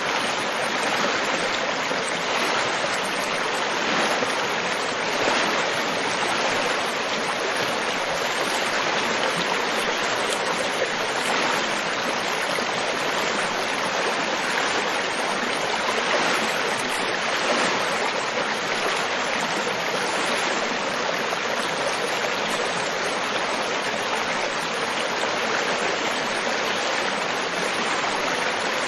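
River water flowing steadily over rocks, a continuous even rushing and babbling with no breaks.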